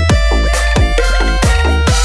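Loud electronic dance music for a bass sound check: a constant deep sub-bass with punchy kick drums whose pitch drops on each hit, under sustained synth tones.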